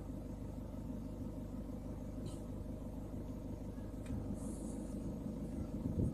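Steady low rumble of a vehicle engine running, heard from inside the cab, with a couple of faint brief ticks.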